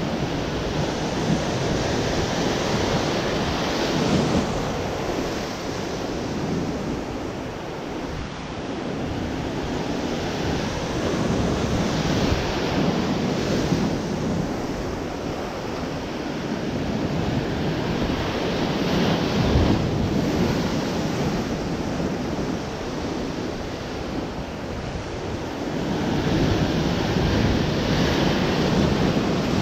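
Surf breaking and washing against a rocky shore, swelling louder in surges every several seconds, with wind buffeting the microphone.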